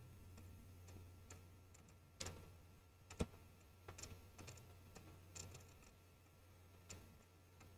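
Near silence over a faint low hum, broken by a few faint, scattered clicks of a computer mouse.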